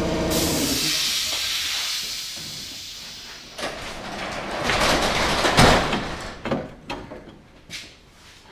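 A running motor stops just after the start, and a hiss fades away over the next couple of seconds. Then loose sheet-metal body parts clank and rattle as they are handled, with several knocks, the loudest about five and a half seconds in.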